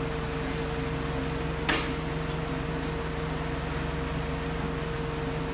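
Steady machine hum with several constant low tones, broken by one sharp knock about a second and a half in.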